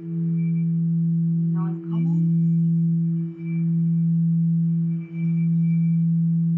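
Singing bowl sounding a steady low tone with a fainter overtone about an octave above it, kept going by a mallet circling its rim, so the level swells and briefly dips about every one and a half to two seconds.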